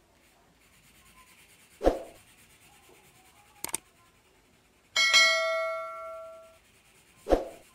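Faint scratchy rubbing of a coloured pencil shading on paper, overlaid by a subscribe-button animation's sound effects: a thump about two seconds in, a quick double mouse click, then a bell chime that rings out for about a second and a half, and another thump near the end.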